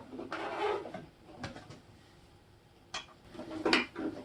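Handling noises while a motorcycle mirror is taken off its mount: a short scrape, a few sharp clicks, a quiet stretch, then louder knocks near the end.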